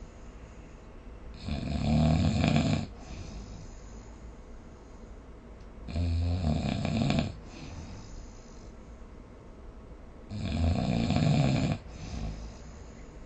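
A sleeper snoring: three loud snores, each about a second and a half long, coming about four seconds apart, with quieter breathing between them.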